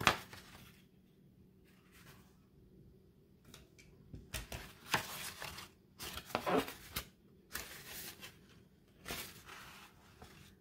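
A desktop stapler snaps shut once through folded paper right at the start, then stiff construction paper rustles and crinkles in four or five short bursts as the folded paper kite is handled and opened out.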